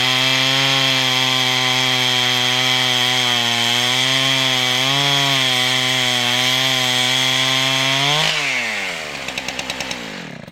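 Large chainsaw on a chainsaw lumber mill running at full throttle under load while ripping a log lengthwise, its pitch wavering slightly as the chain works through the wood. Near the end the cut finishes, the throttle is released and the engine falls to a lumpy idle, then stops.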